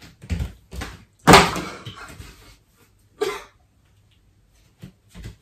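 A toy sword thrown up and coming down, knocking and clattering against an arm and the floor, loudest about a second in, mixed with short pained grunts and cries.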